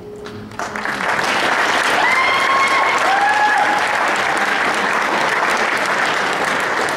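Audience applauding, starting about half a second in and holding steady, with a couple of short high-pitched calls from the crowd about two to three seconds in.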